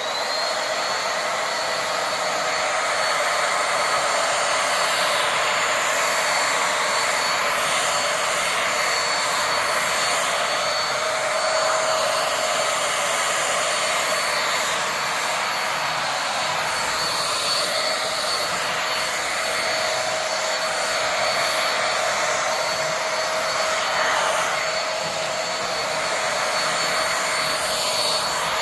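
Corded vacuum cleaner with a motorized roller brush head switched on and running steadily. Its high motor whine climbs briefly as it starts, then holds.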